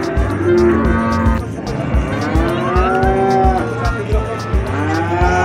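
Cattle mooing: three long, drawn-out moos, each rising, holding and falling away, over a steady music beat.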